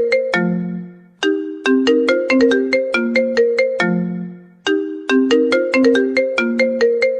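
A mobile phone ringtone melody: a short phrase of quick, bright notes that ends on a long low note fading away, repeated about every three and a half seconds.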